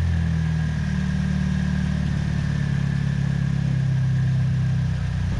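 A 2007 Pontiac G6's 2.4-litre Ecotec inline-four idling steadily just after start-up, on newly fitted coil packs. The idle eases down a little near the end.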